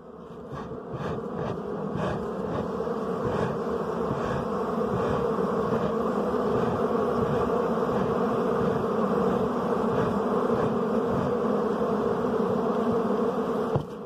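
A wild honeybee colony buzzing close up in a dense, steady hum that swells over the first couple of seconds. The bees have been smoked because the colony is a bit aggressive.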